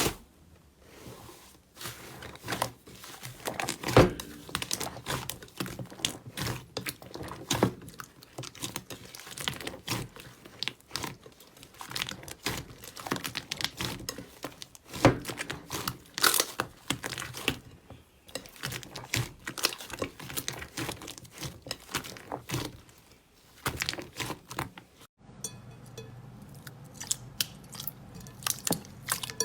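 Slime being squeezed, stretched and poked by hands close to the microphone, giving a dense run of small crackles, pops and sticky clicks. A brief break about 25 seconds in, then the same kind of handling sound resumes.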